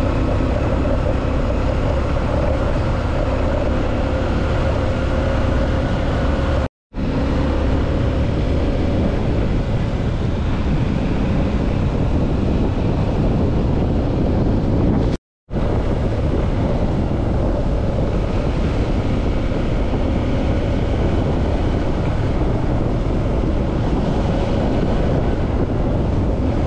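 Dirt bike engine running at a steady riding speed, with heavy wind buffeting on the microphone. The sound cuts out very briefly twice, about seven and fifteen seconds in.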